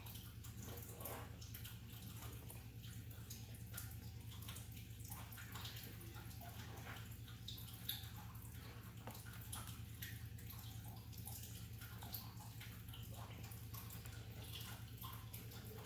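Faint small drips and splashes of water, scattered irregularly over a steady low hum.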